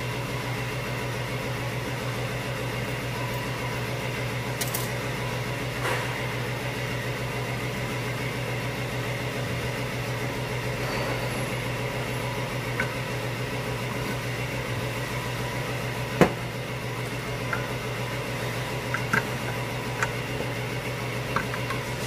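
Steady mechanical hum, with a few light clicks of hand tools on metal engine parts as a small engine is taken apart; the sharpest click comes about 16 seconds in.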